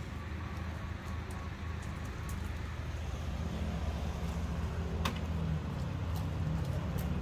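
Steady low mechanical hum, like an engine running at idle, over light street background noise. A few sharp clicks sound over it, the loudest about five seconds in.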